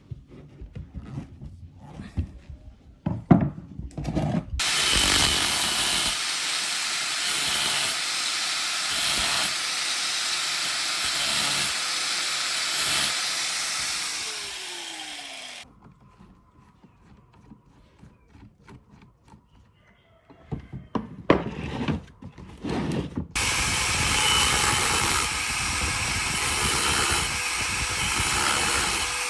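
A power tool runs in two long stretches of about ten seconds each, its motor pitch falling as it spins down after each stop, with knocks and handling noises in between.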